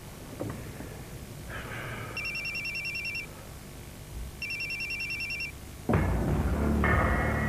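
Electronic ringer of a Motorola mobile phone ringing twice, each ring a fast warbling trill about a second long. Low music comes in near the end.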